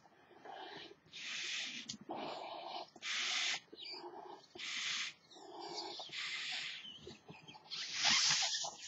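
A person mouth-inflating a large latex duck figure balloon: a quick series of sharp intakes of breath alternating with breaths blown into the balloon, the loudest one near the end.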